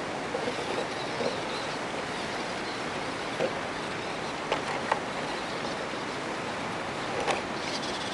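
Steady wind hiss on the microphone, broken by four short sharp knocks of the overturned RC rock crawler's plastic chassis and wheels against rock, spread through the middle and near the end.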